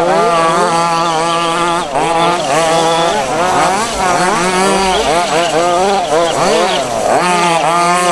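Several 1:5 scale petrol RC buggies' small two-stroke engines racing together, each one's pitch rising and falling as they rev up and back off, overlapping without a break.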